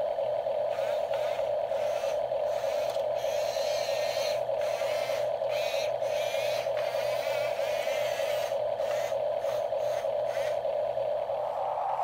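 Radio-controlled toy dump truck's small electric motor and plastic gearbox whining steadily as it drives, with a higher gear whine that wavers as it moves and turns.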